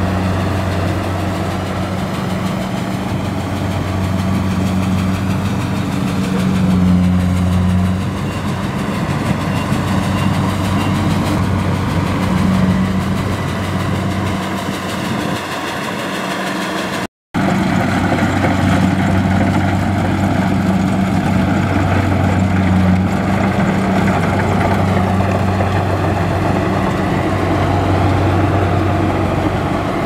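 Tracked Kubota rice combine harvester running steadily while harvesting: a steady engine hum under the noise of its working machinery. The sound cuts out for a moment about seventeen seconds in.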